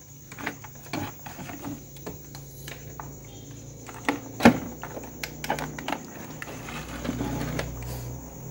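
Clicks and knocks from a Wahiba portable FM radio being handled, tilted and its knobs and switches worked, the sharpest knock about four and a half seconds in, over a low hum that grows louder near the end. The powered radio plays no station, voice or music: the fault, later traced to a broken antenna wire.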